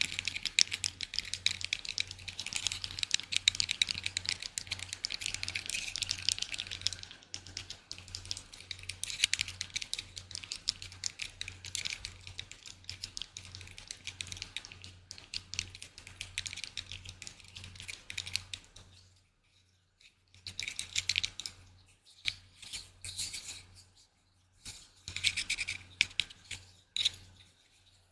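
Close-miked ASMR trigger sounds: rapid fine scratching and tapping on an object. It runs continuously at first, then breaks into bursts with short pauses.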